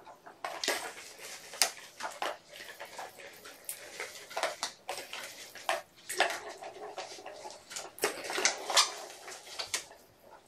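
Kittens batting at a plastic tower-track ball toy, making irregular light clatters and rattles.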